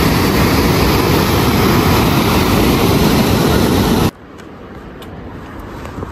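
Rushing mountain stream: white water tumbling over rocks makes a loud, even rush. It cuts off suddenly about four seconds in, leaving a much quieter outdoor hiss with a few faint clicks.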